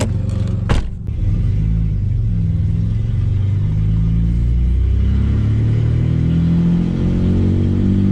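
Straight-piped Ford AU Falcon six-cylinder engine heard from inside the cabin, pulling with a low drone and revs climbing over the last few seconds. A car door shuts about a second in.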